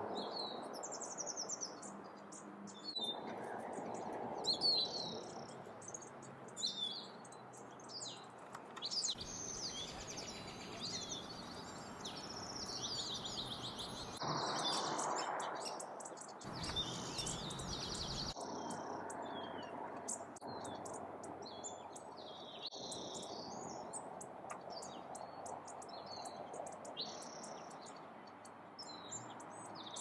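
Small songbirds chirping and twittering in many short, high calls over a steady low background hiss. The mix changes abruptly a few times.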